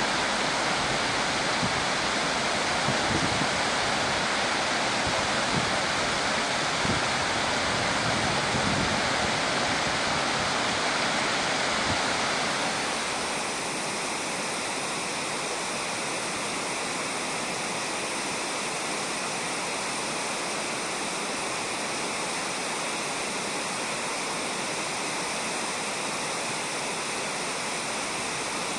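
Shallow mountain river running over a gravel bed, a steady rush of water. About halfway through it becomes slightly quieter and thinner.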